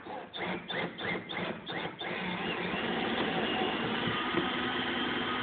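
Power drill driving a screw: a few short squeaky spurts, then running steadily from about two seconds in.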